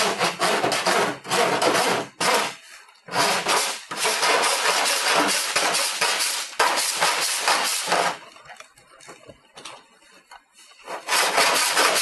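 Body file rasping back and forth over an aluminum body panel, filing off the stub of a welded-on pull nail. Rapid scraping strokes with a brief pause about two seconds in, a quieter spell of about three seconds late on, then hard strokes again near the end.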